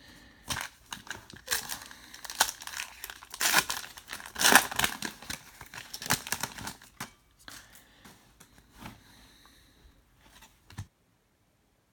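Foil wrapper of a trading-card pack being torn open and crinkled, loudest about four to five seconds in, then fainter rustling until it cuts off to silence near the end.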